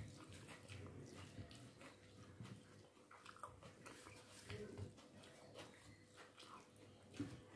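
Faint eating sounds: chewing, and fingers mixing rice with tomato salad on a plate, heard as soft irregular clicks.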